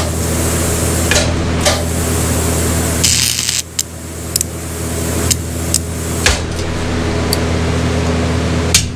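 TIG welding arc on cast aluminum: a steady electrical buzz broken by sharp pops and crackles, with a brief hiss about three seconds in. The arc is misbehaving on oil-contaminated aluminum, with the welder saying they are having issues.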